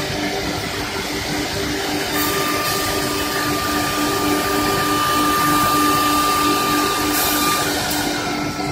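CNC wood turning lathe cutting a spinning wooden spindle: steady machine noise with a low pulsing hum and a thin high whine through most of it.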